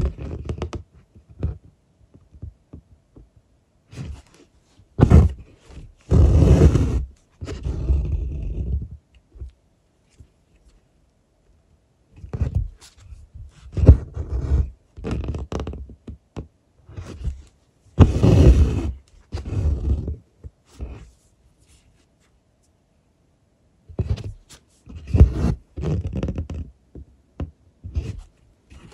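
Embroidery thread being pulled through cloth, with the fabric handled close to the microphone: irregular bursts of rubbing and scraping with quiet gaps between them, the longest pulls lasting about a second.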